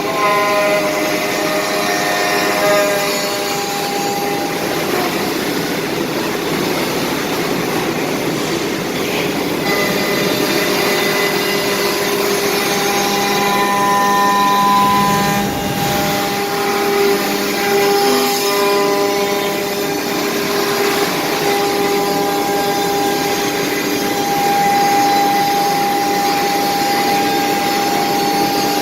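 4-axis CNC router spindle cutting wood: a steady machine whine over the hiss of the cut, with the pitch stepping up and down as the cutter load changes.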